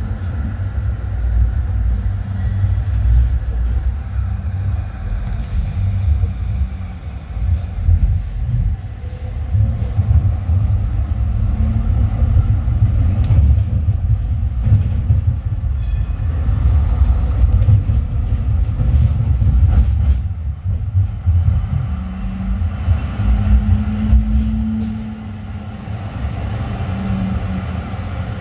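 Tram running along the line: a steady low rumble with scattered clicks, and a faint hum that comes and goes, clearest near the end.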